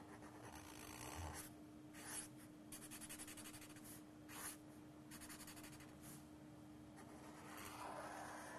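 Faint scratching of a pen drawing strokes on paper, with runs of quick short strokes about three seconds in and again about five seconds in.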